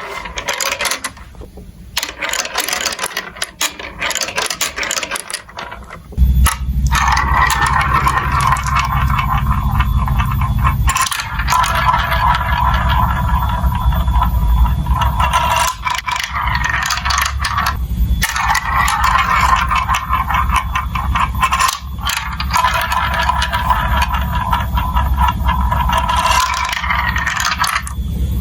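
Marbles rolling and clattering through a plastic building-block marble run. The first few seconds are quick small clicks. From about six seconds in there is a steady rolling rumble with fine rattling on top.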